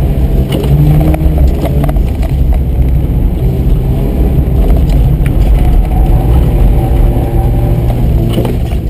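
1982 Mazda RX-7's twin-rotor 12A rotary engine heard from inside the cabin under hard driving, its note rising and falling with the throttle.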